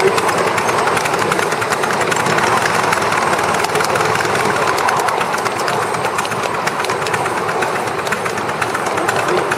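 7¼-inch gauge model of an LMS Black 5 steam locomotive running with its train: a steady rush of steam and running noise laced with rapid clicks from the wheels on the track.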